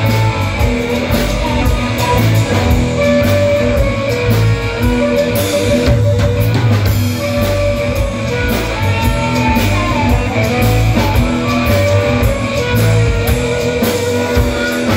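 Live rock band playing an instrumental break: electric guitars and drum kit, with a harmonica playing held notes over them.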